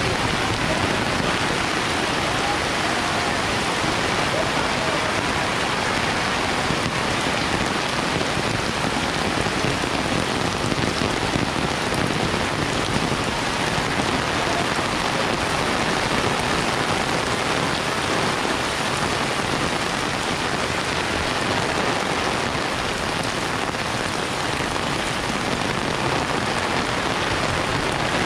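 Heavy rain pouring down in a steady, unbroken downpour.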